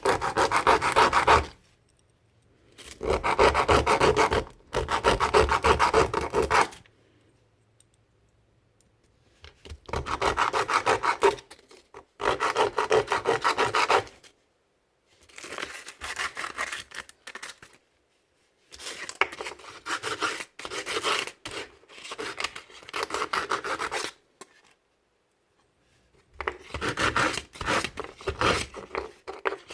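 Hand sanding of small gun-model parts: quick back-and-forth rubbing strokes in bursts of a couple of seconds, with short pauses between them.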